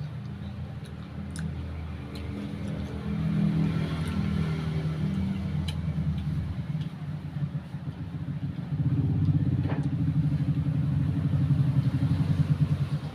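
A motor engine running steadily nearby, getting louder about nine seconds in, with a few faint crunching clicks of chewing over it.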